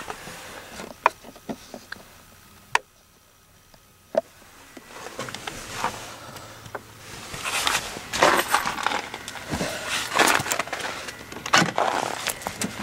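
Scattered sharp clicks from handling and pressing the buttons of a Webasto heater's timer control. From about halfway these give way to a denser, louder run of crunching and scuffing noises, like steps and handling in snow.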